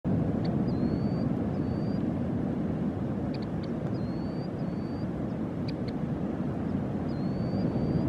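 Steady low rumble of ocean surf. Over it, thin high bird calls come six times, each a short whistle sliding slightly upward, with a few sharp high ticks between them.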